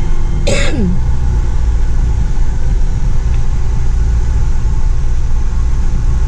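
Steady low rumble like a running vehicle, with a short voice-like sound about half a second in whose pitch falls steeply.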